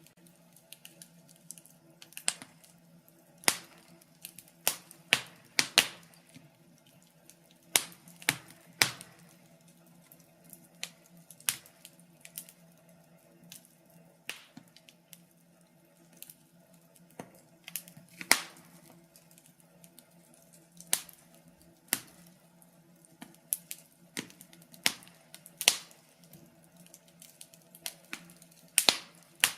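Wood fire burning in a fireplace, crackling with sharp pops at uneven intervals over a faint steady hum.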